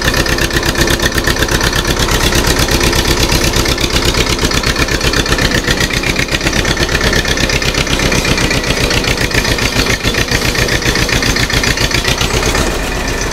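TAFE 25 DI tractor's diesel engine running loud and steady, with a fast, even beat of firing strokes. Near the end the deepest part of the sound drops away a little.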